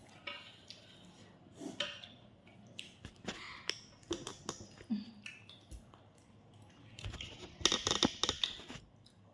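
Eating sounds of fried tandoori chicken eaten by hand: chewing and tearing with scattered small clicks and clatters, and a denser burst of crackly clicking near the end.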